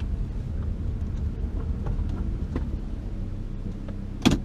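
Steady low rumble of a 2005 Toyota Camry being driven, heard inside the cabin, with a few faint ticks and one sharp knock near the end.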